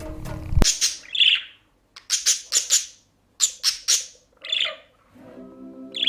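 A bird chirping in quick runs of three or four short, high calls, with softer calls between the runs. Background music stops abruptly just under a second in and comes back faintly near the end.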